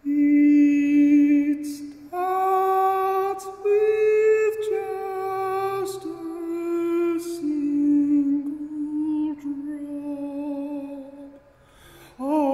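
A man singing unaccompanied: a slow, wordless melody in long held notes that step up and down, with a short pause near the end.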